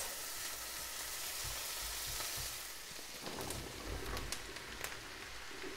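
Butter and chopped onions sizzling in a frying pan as diced porcini mushrooms are added, a steady frying hiss with a few light knocks around the middle.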